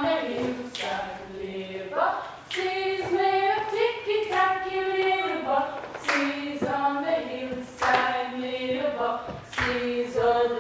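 A group of voices singing together unaccompanied, moving through held notes in a steady tune.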